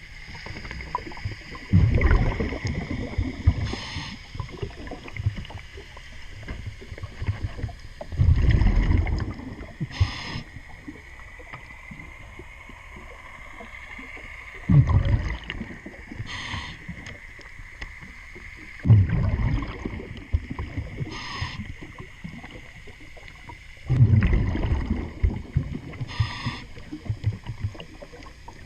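A diver's regulator breathing underwater. Five exhaled bubble bursts gurgle for a second or two each, about every five seconds. Between them come short hisses of inhalation, over a steady faint high whine.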